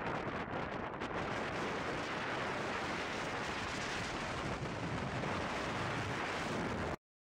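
Wind buffeting the microphone of a camera on a moving motorcycle: a steady rushing noise that cuts off abruptly near the end.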